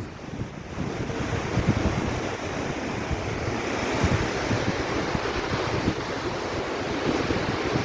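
Monsoon wind gusting and buffeting the microphone over a steady rushing wash of water.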